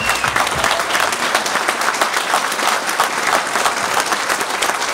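Audience applauding in a hall, with one pair of hands clapping close to the microphone.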